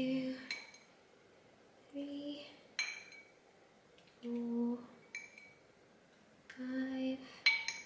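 A metal tablespoon clinking against a glass bowl four times, about every two seconds, as melted butter is spooned out one tablespoon at a time. Between the clinks a woman's voice quietly hums or murmurs the count.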